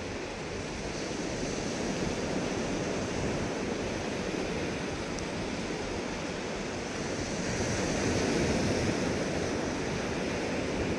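Small waves breaking and washing up a sandy beach as the tide comes in: a steady hiss of surf that swells a little louder about eight seconds in.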